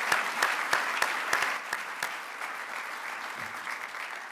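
Audience applauding, the clapping gradually thinning and dying down toward the end.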